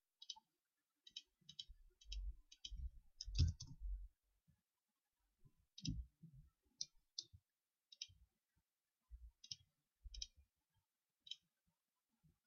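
Computer mouse buttons clicking irregularly and faintly, some clicks in quick pairs, with a few soft low thumps in between.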